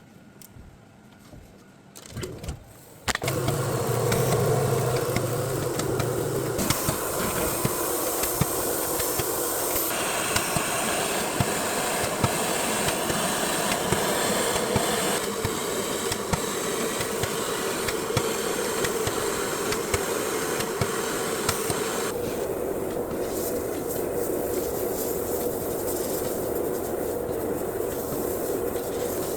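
Depowdering station for a full-colour powder 3D print, starting up about three seconds in with a steady motor hum, while a compressed-air jet hisses and changes strength several times as loose powder is blown off the printed figure.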